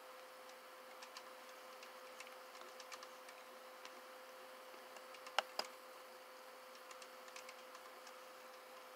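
Computer mouse clicking quietly: scattered faint ticks and two sharper clicks in quick succession about five and a half seconds in, over a steady hum.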